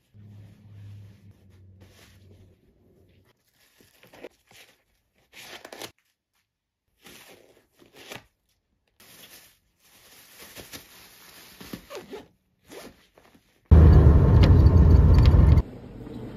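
Canvas backpack being packed: a string of short zip pulls and fabric rustles, each well under a second, scattered over several seconds. Near the end a much louder rushing noise lasts about two seconds and stops abruptly, leaving a quieter steady background noise.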